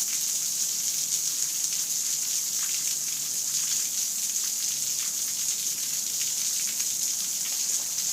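Steady rain falling: a constant hiss with the fine patter of individual drops.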